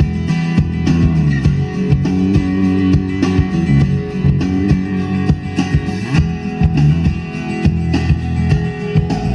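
A song with plucked and strummed guitar played through a car's two-way front component speakers (Bravox Diamond kit), heard in the cabin with the subwoofer switched off.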